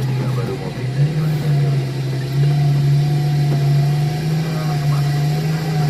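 Diesel engine running steadily, a loud low drone that steps up in pitch about a second in and again around two and a half seconds in.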